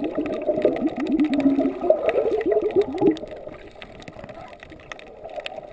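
Underwater gurgling of air bubbles, a quick run of short bubbling notes for about three seconds. It then drops to a quieter underwater hiss with faint scattered clicks.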